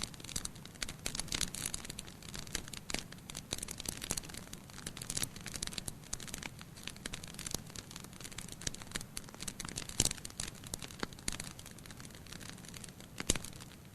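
Campfire crackling: burning wood snapping and popping irregularly, with two louder pops, one about ten seconds in and one near the end.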